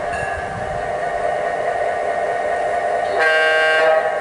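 ESU sound decoder in a Union Pacific GP9 garden-railway model locomotive playing a diesel engine sound through its loudspeaker as the model moves slowly. A short horn blast comes about three seconds in and lasts under a second.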